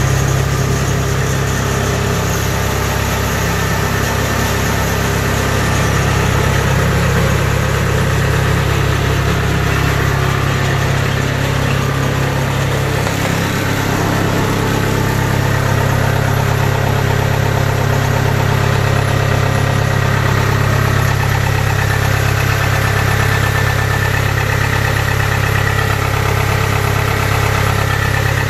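Kubota DC70 combine harvester's diesel engine running steadily after a test start, a constant low mechanical hum with a slight change in engine note about halfway through.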